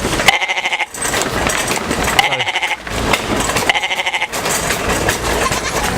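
Goat bleats, three in a row about a second and a half apart, each about half a second long with a quavering tremble.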